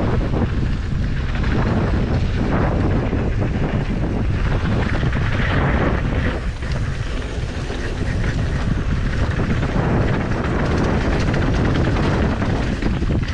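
Wind rushing over the microphone at riding speed, with a mountain bike's knobby tyres rolling over a dirt trail, steady and loud with small irregular knocks from bumps.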